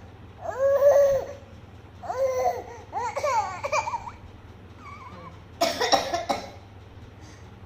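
A young child's voice making short, high-pitched vocal sounds three times, then a harsh burst of coughing about six seconds in.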